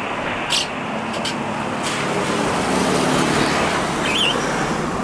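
Airbus A320-214's CFM56 turbofan engines on final approach: a steady jet rumble that grows slightly louder as the airliner nears.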